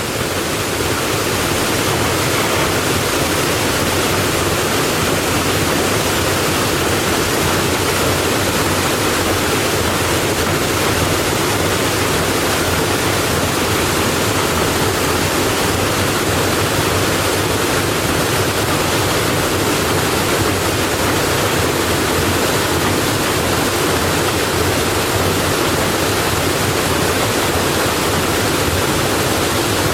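Steady rush of water pouring through the flume of a water-powered sawmill to drive its water wheel, swelling over the first second or so and then holding steady.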